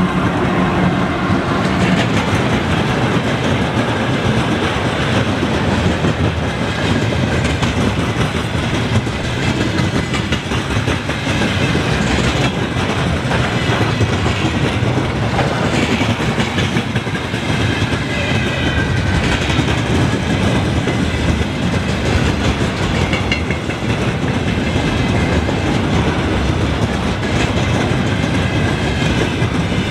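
Freight train rolling past, steel wheels clacking over rail joints in a continuous run of clicks, with faint thin squeals now and then around the middle.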